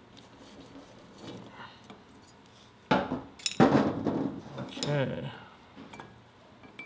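Metal clinking and clattering on a workbench about three seconds in: a screwdriver is put down, then the die-cast float bowl of a Keihin carburetor is handled and worked loose from the carb body. Before that there are only faint small taps.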